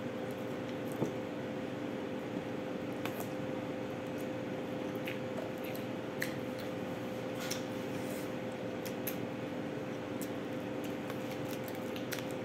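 Steady hum of a room appliance with a low even tone, under faint scattered clicks and small squishing sounds of fingers picking at food in a bowl and handling a plastic bag.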